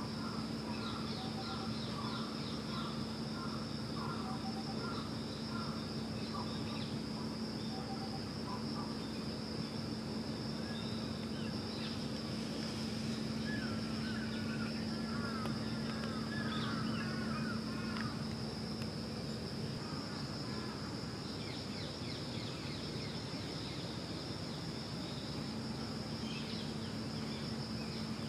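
Outdoor ambience: a steady high-pitched insect drone over a low steady hum, with small birds chirping on and off, most busily a little before the middle.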